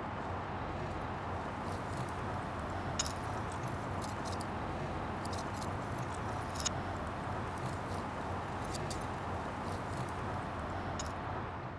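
Steady outdoor background noise with a few faint, scattered clicks, fading out at the very end.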